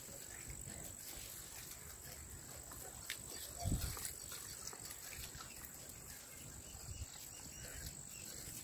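Quiet outdoor ambience with a steady high-pitched whine, a few faint ticks, and one soft low thump a little under four seconds in.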